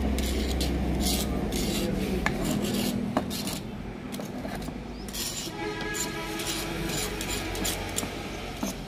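A plastic brush handle scraping and rubbing over paint that a paint stripper has lifted and blistered on metal paint cans. It makes a series of short rasping scrapes, unevenly spaced.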